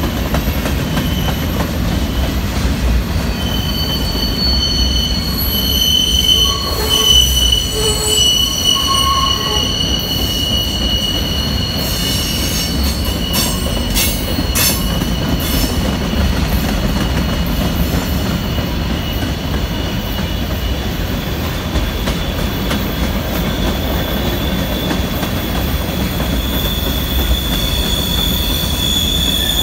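Freight train's cars, mostly covered hoppers, rolling past close by: a steady rumble of steel wheels on rail with high, sustained wheel squeal that comes and goes, and a run of sharp clacks about twelve to fifteen seconds in.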